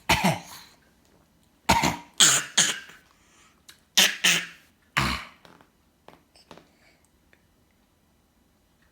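A series of short, sharp coughs: one at the start, three close together about two seconds in, two about four seconds in and a last one about five seconds in, followed by a couple of faint small sounds.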